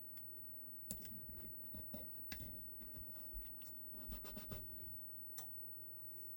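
Faint, scattered light clicks and taps as hands press tape and small blocking pieces onto a pistol.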